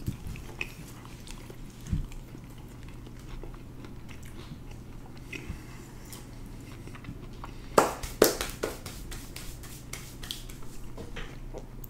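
Close-miked chewing of dry biscuits, mouths working without water, with small wet clicks and smacks. About two thirds of the way in comes a short run of loud, sharp clicks.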